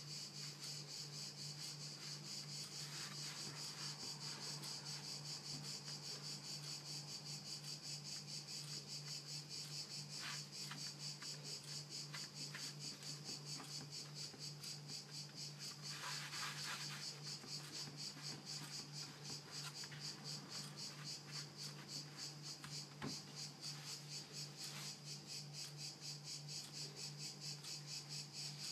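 A continuous high-pitched trill of very rapid pulses, insect-like, over a steady low hum. A brief scrape comes about sixteen seconds in.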